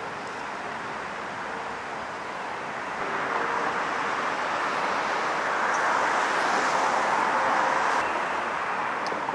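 A subway train passing on the elevated track overhead: a steady rushing noise swells from about three seconds in, is loudest a little past the middle, and eases off near the end.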